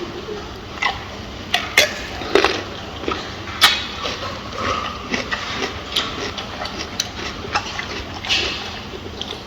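Gorilla eating: irregular crunches and sharp snaps of food being broken and chewed, about a dozen cracks, the loudest near the first and middle of the stretch.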